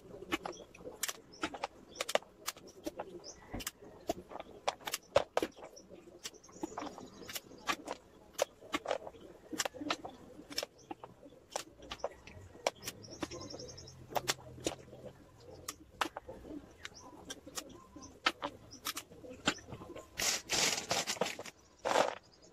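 Sharp clicks and cracks of small snail shells being snipped with hand pliers, one after another at irregular intervals, as the shell tips are cut off. A brief rattling rush comes a little before the end.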